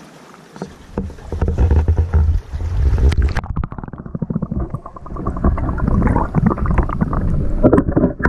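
Seawater sloshing and splashing against a landing net and the camera on its pole as they are pushed into the water. A few seconds in, the sound goes under water and turns muffled, a heavy low rumble of rushing water and bubbles with knocks of the pole and net.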